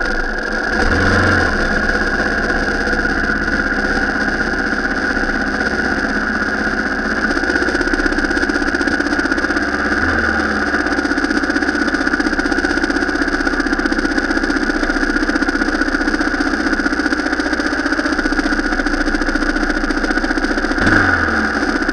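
A vehicle's engine running steadily, with brief changes in its note about a second in, around ten seconds in, and near the end.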